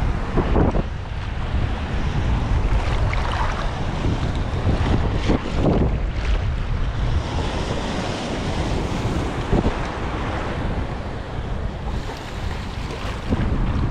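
Choppy sea surf washing over shallow reef, with strong wind buffeting the microphone as a steady low rumble. Louder wave surges come through near the start, about five and a half seconds in, about nine and a half seconds in, and near the end.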